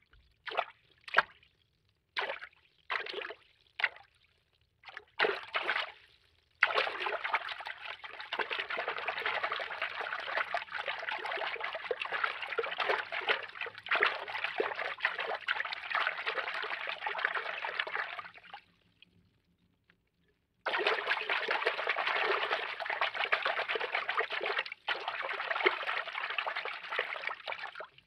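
Cartoon water-movement foley: about eight short, separate water movements over the first six seconds, then a continuous stretch of moving water lasting about twelve seconds. It breaks off for about two seconds and resumes until the end.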